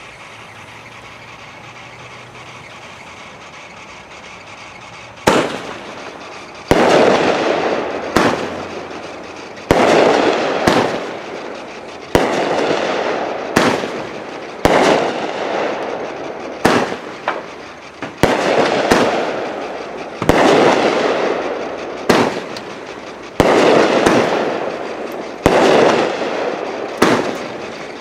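Phantom Fireworks Crack the Sky 500-gram, 20-shot cake firing its shots in a steady sequence, a sharp bang about every second or so, each followed by a noisy tail that fades over about a second. The shots begin about five seconds in, after a stretch of quiet steady background.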